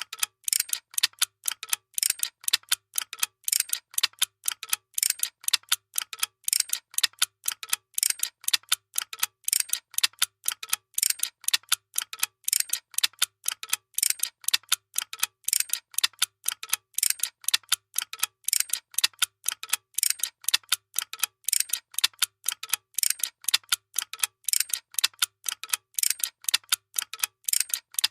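Workshop machinery clicking rapidly and steadily, about five sharp mechanical ticks a second.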